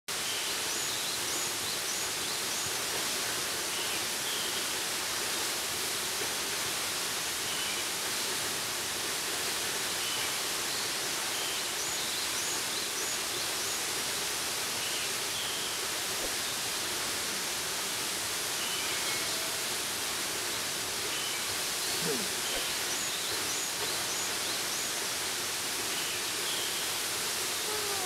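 A tall plunge waterfall pouring steadily, a constant rushing hiss of falling water. Faint high bird chirps come in small groups about every ten seconds.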